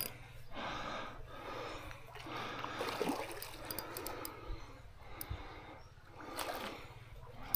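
A man's breathing, a soft breath about every second, over faint trickling creek water.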